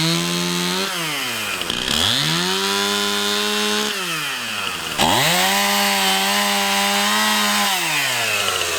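Two-stroke chainsaw with a freshly sharpened chain cutting through tulip poplar posts: the engine revs up to full throttle and holds for a few seconds, drops back, then revs up again about five seconds in for a second cut and falls back toward idle near the end.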